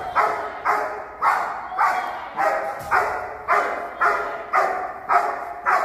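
A protection-trained dog barking steadily in a fast, even rhythm, about two barks a second.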